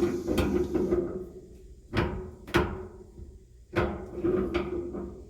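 A metal tin tub knocked and clanked as it is handled: a run of hollow metallic clunks, several in quick pairs, each with a brief ringing tail.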